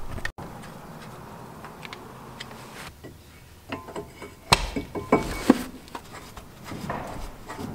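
A few sharp metal clinks and knocks, about halfway through, as a brake caliper bracket is fitted over a new front brake rotor.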